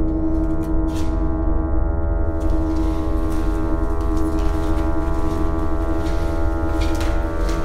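A dark, droning horror-film score: many held metallic tones ringing together like a sustained gong, steady and without a beat.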